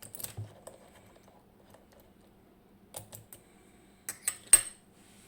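Lock-picking tools clicking and tapping against a small pin-tumbler lock: a few light clicks near the start, a couple around the middle, and a quick cluster near the end, with one sharp, loud click about four and a half seconds in.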